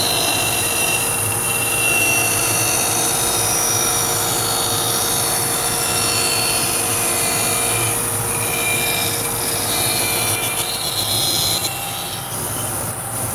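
Laguna 14BX bandsaw running steadily while its blade cuts freehand through a wooden board along a curved line.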